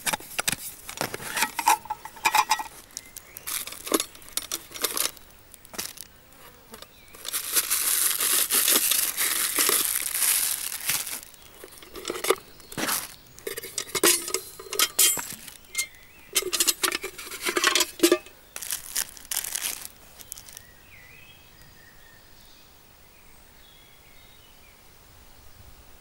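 A metal mess tin and the food packed in it being handled: the lid clip and lid knock and clink against the pot, with a short metallic ring early on. Plastic wrapping crinkles for several seconds, then more clinks and knocks as items are lifted out. It settles into a faint outdoor background for the last few seconds.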